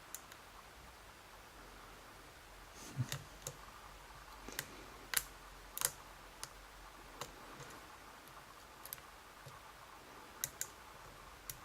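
Small, irregular clicks and ticks of a dimple-lock pick working inside a Vachette V DIS Plus cylinder while its sliders are set. The clicks begin about three seconds in and are loudest around the middle.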